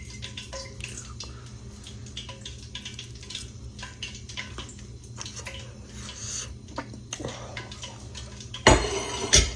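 Fork clicking and scraping lightly on a plate as someone eats, with two loud knocks near the end.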